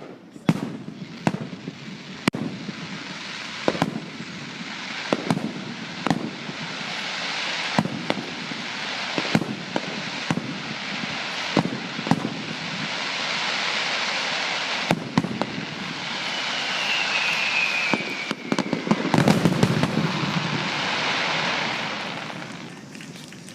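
Fireworks going off: a string of sharp bangs about once a second, then a swelling dense crackling hiss of many shells at once, with a short falling whistle partway through. The crackle is loudest near the end, then dies away.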